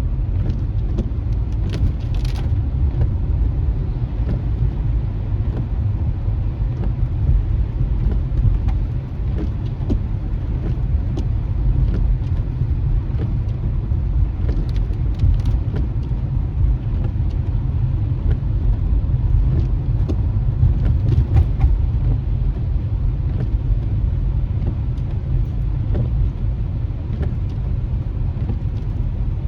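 Car driving on a wet city street, heard inside the cabin: a steady low road rumble, with scattered faint ticks.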